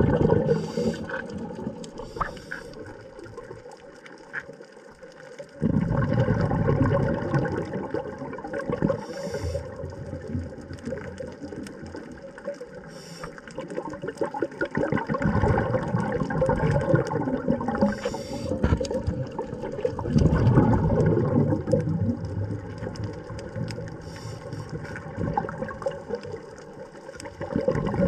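Muffled water noise recorded underwater: sloshing and gurgling that swells and fades every few seconds, with a few short hissing bursts.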